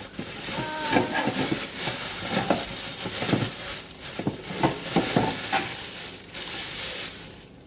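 Plastic packaging crinkling and rustling with irregular light knocks of hard plastic, as a water filter jug's parts and filter cartridge are unpacked and handled. It quietens near the end.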